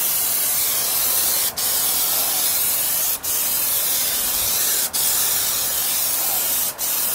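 Aerosol can of Plasti Dip spraying a steady loud hiss in long even passes, cut off briefly four times as the nozzle is let go between strokes. This is the second coat going onto the grille.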